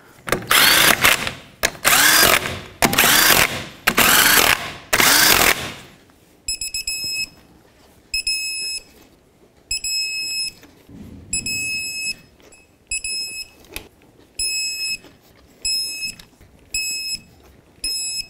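A half-inch impact gun spinning on the lug nuts in five short runs. Then short bursts of electronic beeping come roughly every second and a half while the lug nuts are torqued, the signal of a torque tool reaching its setting.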